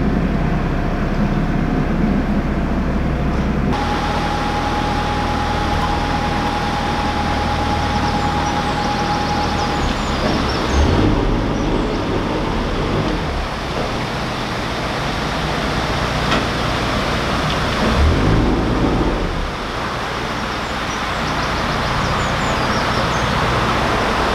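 Narrowboat diesel engine running steadily while under way, a low hum under a rushing noise. The sound changes abruptly several times, and a thin steady whistle-like tone is heard for a few seconds early on.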